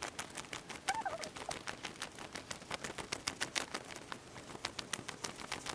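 Paper dollar bills being counted by hand, each note flicked off the stack with a crisp snap, several snaps a second. A brief faint squeak sounds about a second in.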